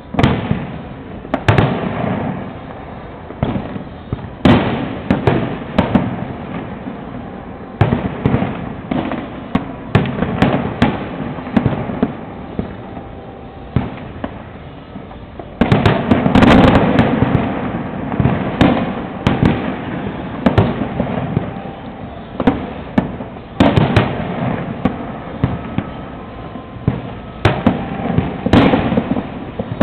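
Fireworks exploding in a string of sharp bangs with echoing tails, thickest in a rapid run about halfway through.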